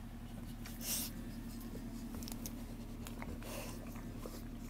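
Soft scratchy rustling and scattered small clicks as a pile of newborn bullmastiff puppies shift against the bedding, with a brief louder rustle about a second in, over a steady low hum.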